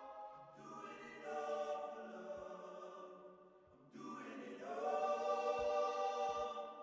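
Background music: a choir-like vocal passage of long held chords that fades around three seconds in and swells again at about four seconds, with a few soft low thuds.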